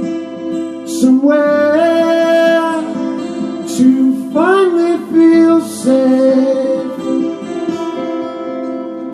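A song with guitar accompaniment and a singing voice holding long notes, sliding up in pitch about two seconds in and again about four and a half seconds in.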